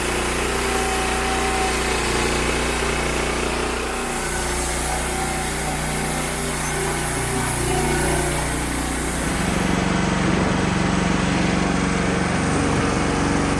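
Wood-Mizer LX25 band sawmill running steadily with its small engine, the blade sawing eastern red cedar. About nine to ten seconds in the sound changes: the high hiss drops away and the engine note shifts.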